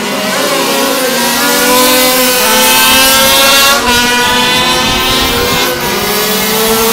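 Several racing motorcycles' engines running at high revs, their pitch sliding and jumping as the bikes shift gear and circulate the track, with a sharp break in pitch about four seconds in.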